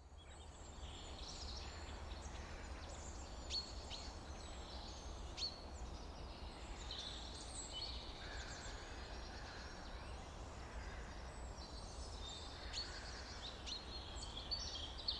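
Faint outdoor birdsong: several small birds chirping and trilling, with short sharp calls scattered throughout, over a steady low rumble.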